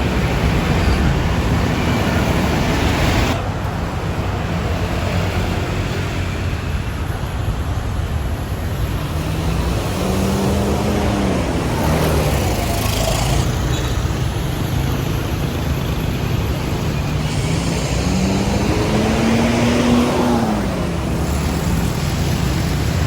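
Large tour bus's diesel engine running over traffic noise, its pitch rising and falling twice as it revs.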